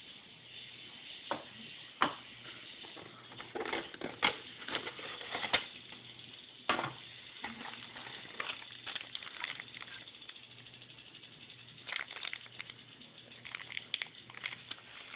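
Handling noise of unpacking a mobile phone box: a cardboard box insert and a plastic-bagged accessory rustling and clicking in scattered short bursts, with a few sharper clicks, over a faint steady low hum.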